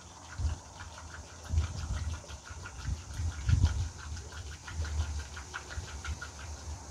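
Petrol pouring from a plastic jerry can, gurgling and glugging in uneven low pulses with a fine trickle on top.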